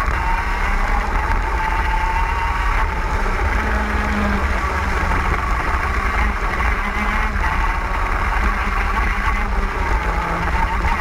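TM K9C 125cc two-stroke KZ shifter kart engine running flat out at high revs, heard from the onboard camera. Its high wail dips in pitch as the kart slows for a corner and climbs again as it accelerates out.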